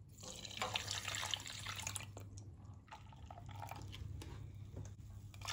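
Wire balloon whisk stirring a milk, sugar, egg and starch custard mixture in a stainless steel pot: liquid splashing with small clinks of the wires, louder for the first few seconds, then softer.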